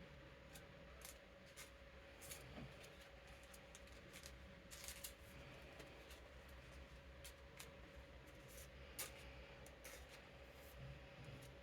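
Faint rustling and light clicks of playing cards being slid into plastic card sleeves, irregular and spread throughout, over the steady hum of an electric fan.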